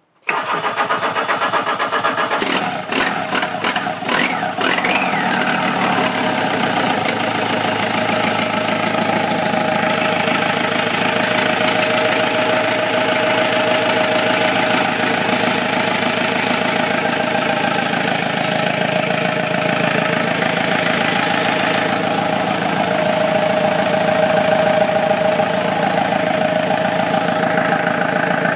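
Volkswagen 1.9 L TDI four-cylinder turbodiesel, fed by a mechanical Bosch VE injection pump with no electronics, starts suddenly at the beginning and runs steadily at idle. A few sharp clicks and a short falling whine come a few seconds in.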